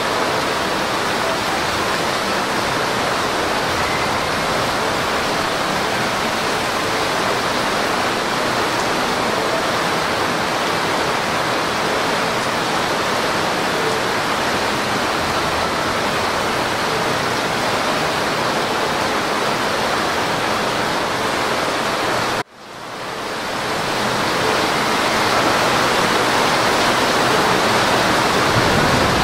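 Torrential rain pouring down in a steady, even hiss. About three quarters of the way through, the sound cuts out abruptly and fades back in over a couple of seconds.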